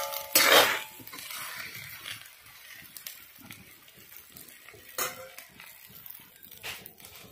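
Metal spoon stirring and scraping dry rice flour and greens around a pan. There is one loud scrape just under a second in and two shorter ones later.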